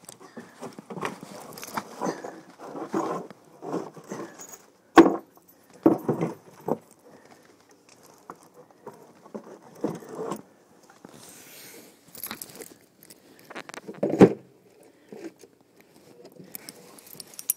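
Handling noise from a phone being carried against clothing: irregular rustling and scraping of fabric over the microphone, with jangling and a few sharp knocks, the loudest about five seconds and fourteen seconds in.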